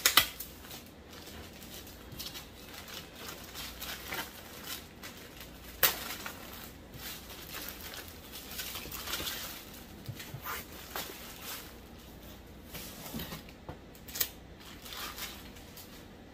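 Thin plastic poly bag crinkling and rustling as it is torn open and comic books are slid out of it by hand, with a few sharper crackles.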